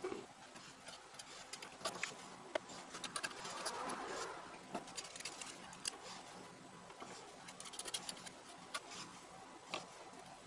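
Scattered light clicks and taps of a small screwdriver and loose screws on the front panel of a Moog Mother-32 synthesizer as it is taken apart, with faint handling rustle.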